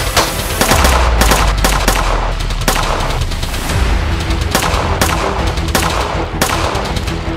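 Gunfire from rifles and a submachine gun: many sharp shots in quick, uneven succession, over dramatic score music with a low rumble.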